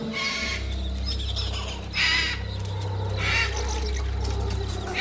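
Caged parrots giving repeated harsh squawks, about every second and a half. A steady low drone sits under them from about half a second in.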